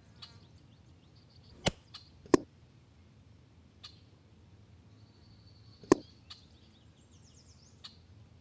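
PCP air rifle shot and pellet strike: sharp cracks, two close together about two seconds in and another loud one about six seconds in, with smaller ticks between. Faint bird chirps sound in the background.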